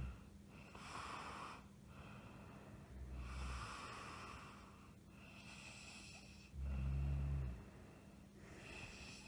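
A woman snoring in her sleep: two deep, low snores, the louder one about seven seconds in, with breathy hissing breaths between them.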